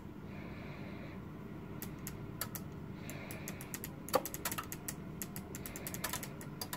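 Relays in a Kone TMS50e lift controller test rig clicking, a few at first and then many quick irregular clicks from about four seconds in, as the simulated lift runs to a call.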